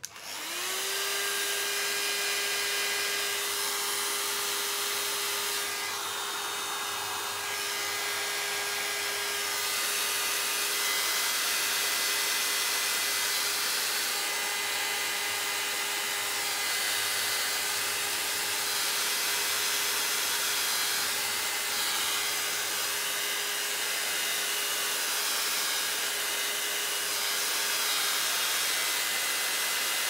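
Small handheld hair dryer switched on and running. The motor hum climbs to a steady pitch within the first second, over a steady rush of air that grows and fades a little as it is moved over the paper.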